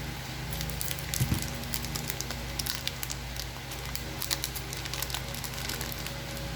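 Booster-pack trading cards being handled and sorted: a stream of light clicks and rustles, over a steady low electrical hum.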